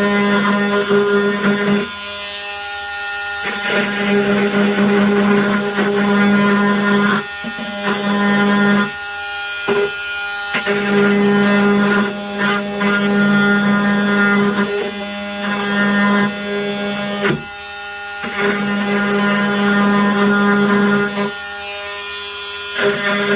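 Milwaukee M18 oscillating multi-tool buzzing as it works a thick plastic piece, in several runs with short pauses between, stopping and restarting about five times.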